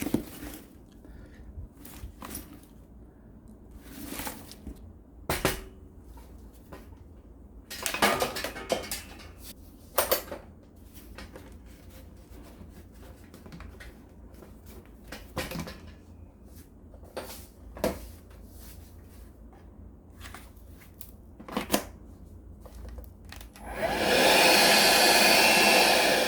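Scattered clicks and knocks of tools being handled, then near the end a hot-air heat gun switches on and blows loudly and steadily.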